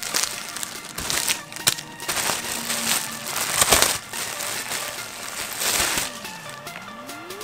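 Clear plastic packaging crinkling and crackling in bursts as it is pulled apart and off a folded garment, over faint background music. Near the end a sliding tone falls and then starts to rise.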